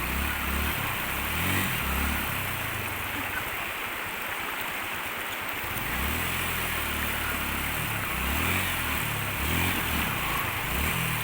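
Motorcycle engine running at low revs, its pitch rising and falling as the throttle is worked, over the steady rush of the river; the engine drops away for about two seconds in the middle.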